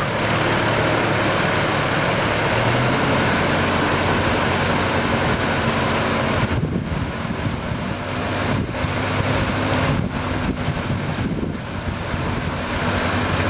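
Tractor engine running steadily under load while pulling a puddling harrow through a flooded rice paddy, with the churning of water and mud mixed into a rushing noise that dips briefly a few times in the second half.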